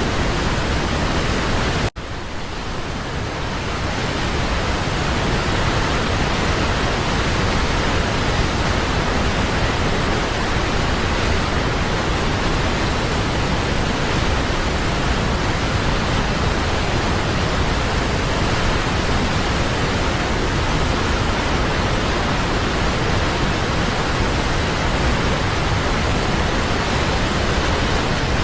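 Steady, loud rush of a waterfall, an even roar of falling water. About two seconds in it cuts out for an instant and then fades back up over a second or two, as at a loop join.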